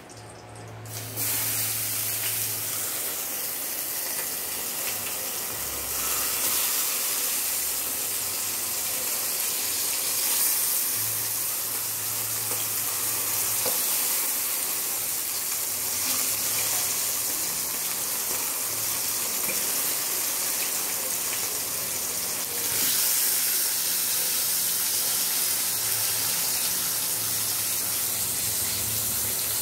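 Whole eggplants frying in hot oil in a shallow pan, a steady sizzle that starts about a second in and continues throughout.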